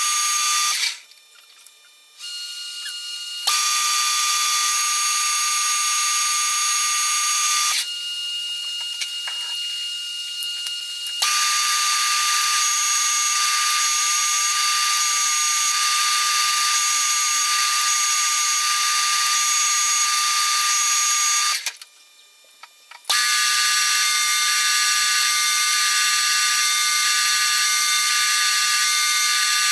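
Metal lathe turning an aluminium bar, cutting tool on the work: a steady whine of several high tones. It drops away abruptly twice, briefly, about a second in and near the two-thirds mark, and runs quieter for a few seconds in between.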